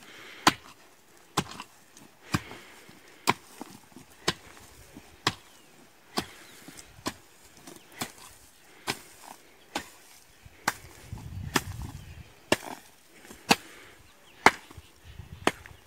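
Iron blade of a kutla, a Garhwali hand hoe, striking hard, drought-dried soil over and over, at about one blow a second in a steady rhythm.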